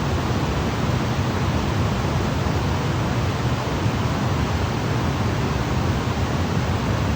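Waterfall rushing in a steady, unbroken roar of falling water, heaviest in the low end.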